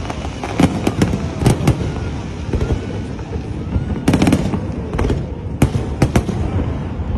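Aerial fireworks shells bursting overhead: an irregular run of sharp bangs over a low rumble, with a close cluster of bangs about four seconds in.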